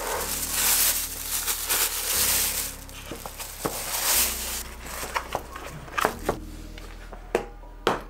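Thin plastic packaging bag crinkling and rustling as a plastic paint case is pulled out of it, followed by a few light clicks and taps as the case is handled and set down.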